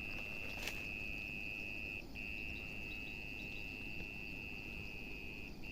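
An insect singing one steady, high-pitched, unbroken note that stops for a moment about two seconds in and again near the end.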